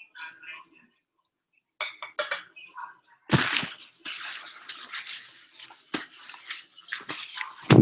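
A few light clinks of a fork on a plate, then a paper napkin rustling and crinkling for several seconds as hands are wiped with it, ending in a sharp thump.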